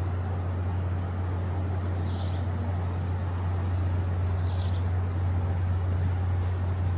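Outdoor background noise with a steady low hum, and three faint, short, falling chirps about two seconds apart.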